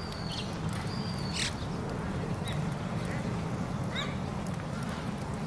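Low steady murmur of people outdoors, with a few bird calls over it: two short high whistles that drop in pitch near the start, and a short harsh call about four seconds in.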